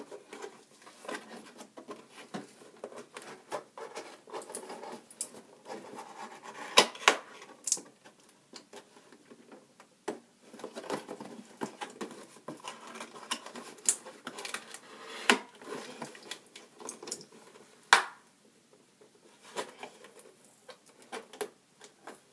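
Hands working at a cardboard toy box to open it, picking and peeling the sealing tape: steady scratching and rustling with scattered sharp clicks and knocks, the loudest about a third of the way in and again near the end.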